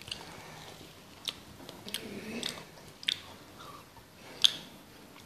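Faint rustling, with about five short, sharp clicks spread across the few seconds, from hands handling the phone close to its microphone.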